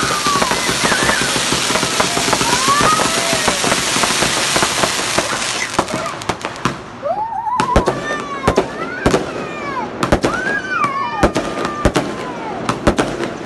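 Fireworks going off: a dense crackling for about the first six seconds, then a run of separate sharp bangs.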